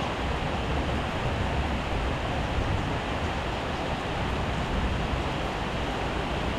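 Heavy rain falling steadily: a dense, even hiss with a low rumble underneath.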